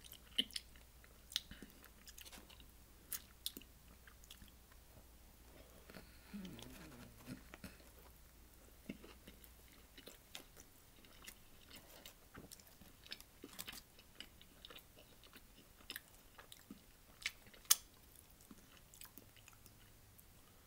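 A person chewing and biting into a saucy chicken sandwich close to the microphone, with scattered wet mouth clicks and smacks.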